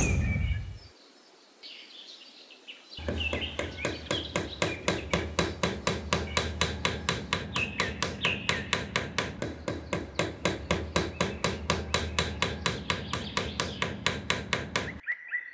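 Rapid, even knocking, about four knocks a second, starting about three seconds in and stopping near the end, with birds chirping behind it.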